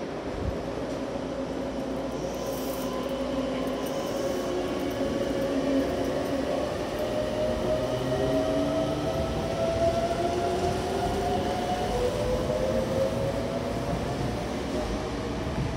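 Red Meitetsu electric train pulling out of the platform and gathering speed, the wheels rumbling under a whine that climbs slowly in pitch as it accelerates.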